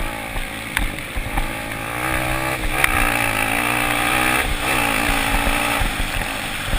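Motocross bike engine accelerating hard, its pitch climbing, dipping briefly about two-thirds of the way in, then climbing again before it fades, with other bikes running underneath.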